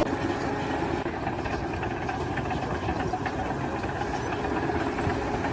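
An engine running steadily at idle, a constant rumble.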